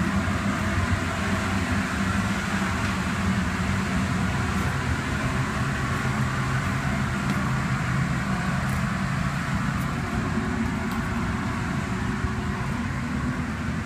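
A fan-driven machine running steadily: a constant rushing noise with a low hum underneath.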